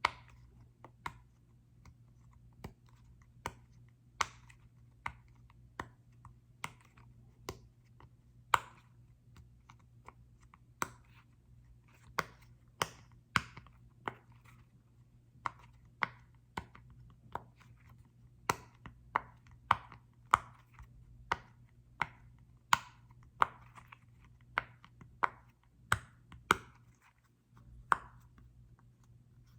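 Crisp taps and clicks on a small football-shaped object, irregular at roughly one to two a second, each with a short ring.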